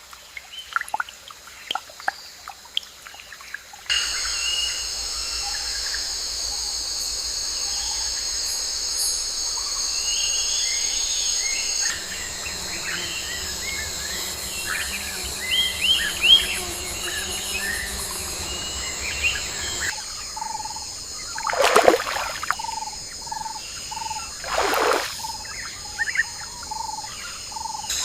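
Nature ambience: water dripping for the first few seconds, then a steady high chorus of insects with scattered bird chirps. In the last third a short call repeats about twice a second, and two loud whooshes pass over it.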